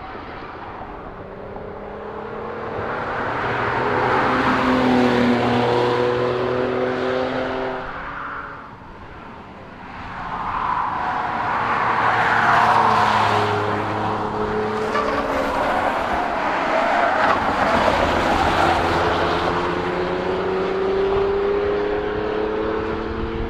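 Camouflaged Mercedes-Benz GLE Coupe prototype driving past under power, its engine pitch rising and falling with throttle and gear changes. It swells louder twice, with a brief dip between.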